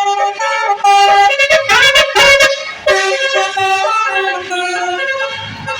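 A bus's Basuri multi-tone 'telolet' horn playing a tune of steady notes that step up and down in pitch. About a second in it gets louder, with rapid pulsing and rising glides for a couple of seconds before the stepping melody resumes.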